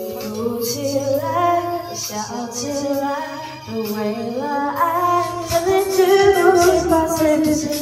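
A woman singing karaoke into a microphone over a backing track, with a cut to a different song partway through.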